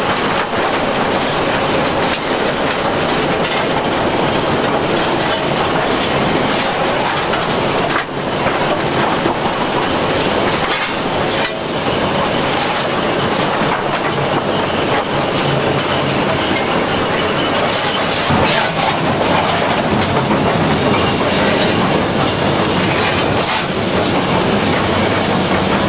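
Loud, steady running noise of BR Standard Class 2 2-6-0 steam locomotive No. 78022 on the move, heard from inside its cab.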